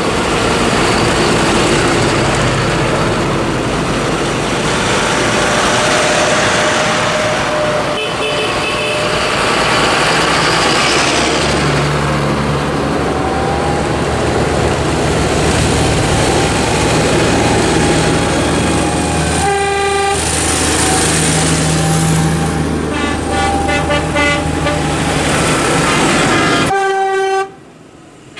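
A procession of tractors driving past with their diesel engines running steadily. Several horn toots sound in the second half.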